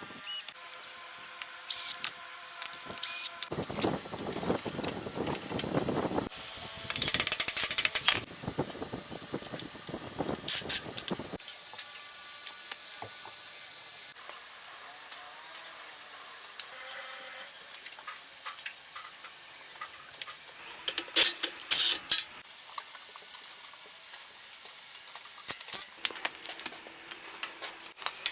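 Workshop sounds of hand tools and metal parts being handled during a dirt bike restoration: scattered clicks and clinks, with a long stretch of hissing spray about four seconds in.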